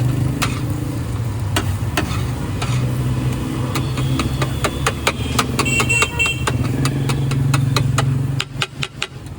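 A motor vehicle engine idling steadily close by, dropping away near the end, with many sharp clicks and clinks over it.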